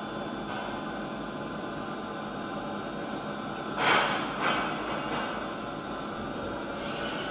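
Large CNC mill-turn machine running with a steady mechanical hum and hiss. About four seconds in come three short hissing bursts, the first the loudest.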